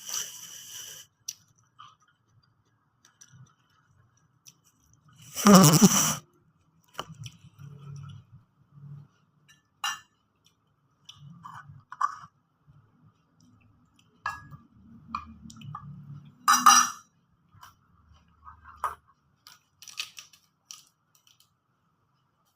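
Someone eating a meal: a spoon clinking and scraping on a dish, with soft chewing between, and two louder clatters, one about six seconds in and one near seventeen seconds.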